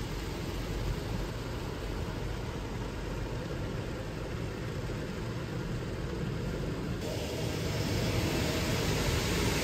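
Automatic soft-touch car wash working on a car, heard from inside the cabin: a steady rushing of water and foam over the windshield and body. About seven seconds in it grows louder and brighter as the cloth brushes sweep across the windshield.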